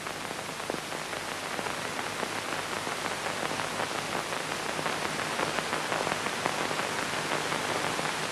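Steady hiss with fine crackle, the surface noise of an old film soundtrack, growing slightly louder.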